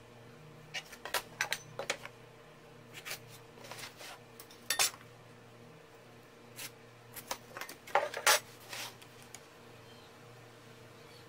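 Steel ruler and aluminium speed square clinking and tapping on wooden boards as they are laid down and shifted, in irregular clusters of sharp clicks, over a faint steady hum.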